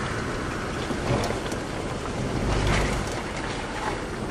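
Land Rover Discovery 3 driving slowly along a rutted mud track, heard from inside the cabin: a steady rumble of engine, tyres and suspension that swells briefly about two and a half seconds in, with a few light knocks.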